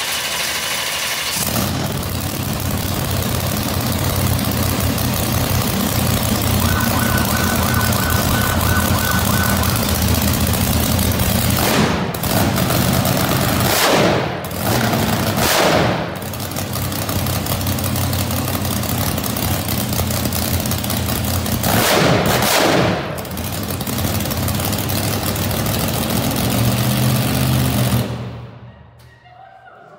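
Methanol-fuelled Chevy V8 monster truck engine starting up and running very loud, with several short throttle blips partway through, then shut off abruptly near the end.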